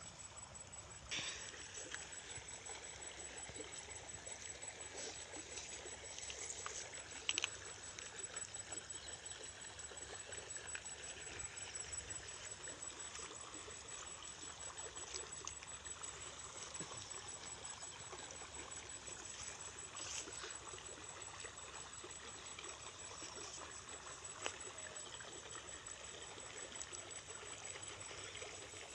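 Water trickling steadily in a small stream, with a few sharp clicks along the way.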